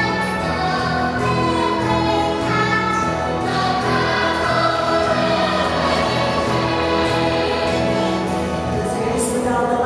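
Music: a choir singing long held notes over orchestral backing.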